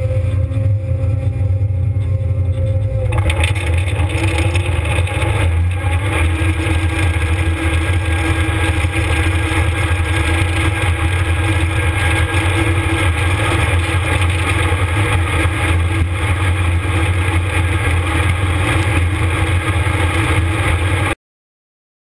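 Combine harvester and its corn head running, a loud, steady low drone heard up close at the header. About three seconds in the sound becomes fuller and noisier, and it cuts off abruptly near the end.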